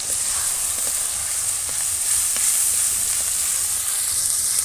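Ground ginger-garlic and spice pastes sizzling steadily in hot mustard oil in a metal kadai, stirred with a spatula, with a few faint taps of the spatula.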